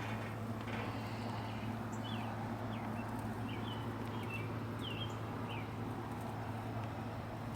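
Bird chirping outdoors: a string of short, quick chirps from about two seconds in to near six seconds, over a steady low hum and an even background hiss.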